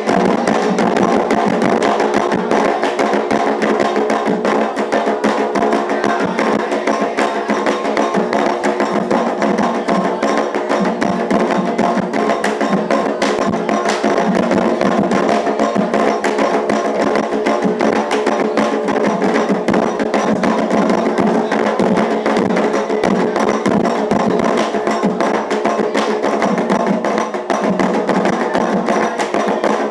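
Afro-Brazilian Candomblé ritual drumming: hand drums and a clacking percussion part keep up a fast, dense, continuous rhythm.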